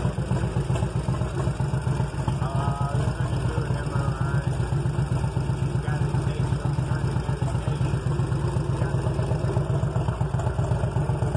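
2001 Indian Spirit's S&S 88 cubic-inch V-twin idling with a steady, even beat, running properly on its freshly cleaned and adjusted S&S Super E carburetor after sitting for years.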